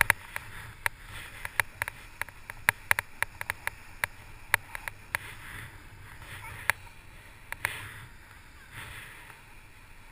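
Fat bike rolling over snow, heard from a helmet-mounted camera: a steady hiss of tyres and wind with many sharp, irregular clicks and ticks, thickest in the first half.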